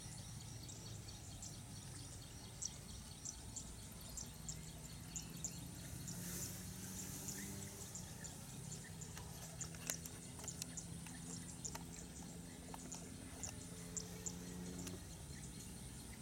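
Rice-field ambience: a steady high whine with many faint, quick high chirps throughout. A low steady hum comes in about four seconds in and stops about fifteen seconds in.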